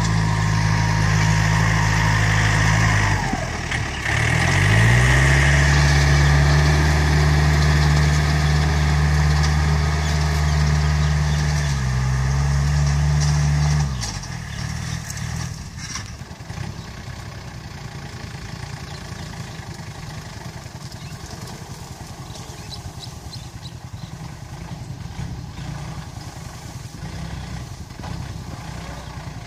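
Yanmar EF454T tractor's diesel engine running hard while pulling a disc plough through the soil. About three seconds in the engine note sags under the load and picks back up, and about halfway through the sound drops abruptly to a quieter, more distant engine running.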